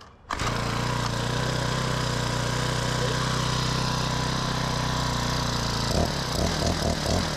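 Lawn edger's Honda GX35 four-stroke engine starts abruptly and runs steadily, then about six seconds in it stumbles and sputters unevenly: the choke was turned off too soon on an engine whose carburettor still isn't right.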